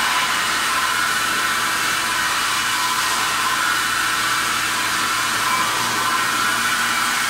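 Automatic dish-head polishing machine grinding a rotating stainless steel dish head, its motor-driven abrasive head pressed on the metal and throwing sparks. It makes a steady grinding hiss with a faint constant whine.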